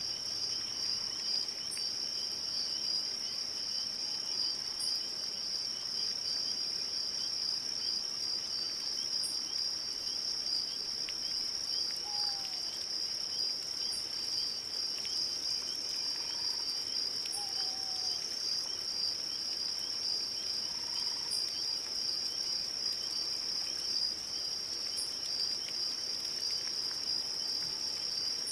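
Crickets chirping in a steady, continuous high trill, with a few faint short bird calls midway.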